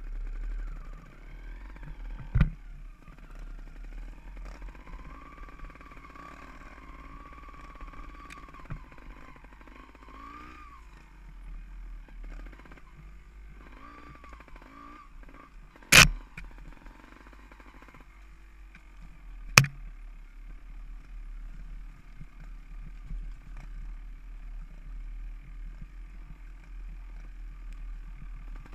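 Off-road motorcycle engine running as the bike climbs a rough dirt trail, its revs rising and falling. Three sharp knocks cut through, the loudest about sixteen seconds in.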